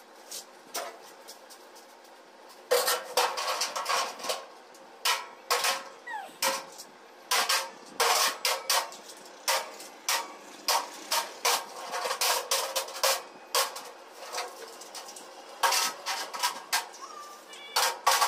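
Irregular light metallic clanks and rattles of a steel grill gate frame and sheet panel being handled and shifted. They begin about three seconds in and carry on in clusters.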